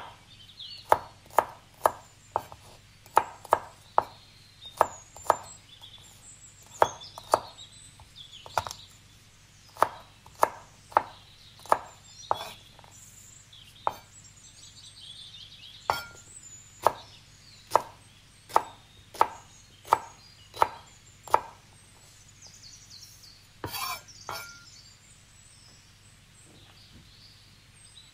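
Kitchen knife slicing garlic cloves on a wooden cutting board: sharp knocks of the blade hitting the board, about two a second, stopping about three quarters of the way through.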